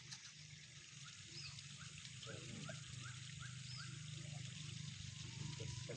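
A bird calling a run of about seven short rising notes, about two a second, over a steady low hum.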